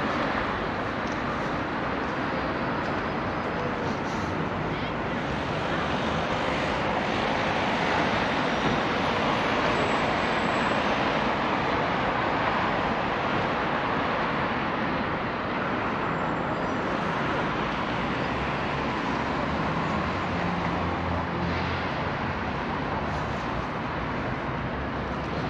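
Steady city road-traffic noise from cars driving past on a wide street, an even rushing hum that swells a little in the middle.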